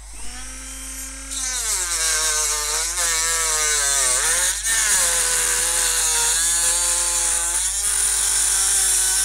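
Dremel rotary tool with a cut-off disc cutting into a plastic plug-top power-supply case. The motor whine starts at the outset, and a loud rasping cutting noise joins about a second in. The pitch sags each time the disc bites into the plastic and recovers as it eases off.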